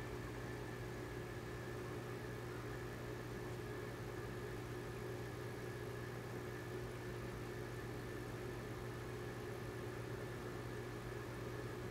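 Aquarium air pump and air-driven filter running: a steady low hum with a faint higher tone over an even hiss.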